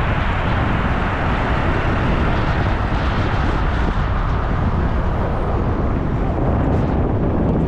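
Steady rumble and rush of a moving vehicle during a ride, heard at a constant level with no clear engine tone.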